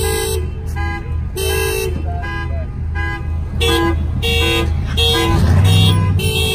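Car alarm sounding a fast repeating pattern of two alternating tones, a couple of beeps a second, over a steady low engine rumble that swells briefly about five seconds in.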